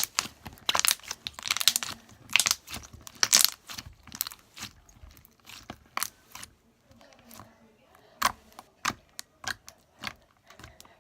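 Slime being squished and stretched by hand, giving off a run of sticky crackles, clicks and pops, dense for the first few seconds and sparser after.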